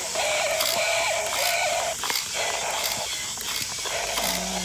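Battery-powered walking King Kong toy: an electronic animal roar from its small speaker over fast clicking of its plastic gearbox as it walks. The roar runs for about two seconds, then returns in shorter bits.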